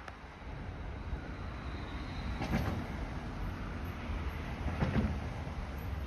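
Distant, steady low rumble of an Airbus A350-900's Rolls-Royce Trent XWB jet engines climbing out after takeoff, with two brief louder whooshes about two and a half and five seconds in.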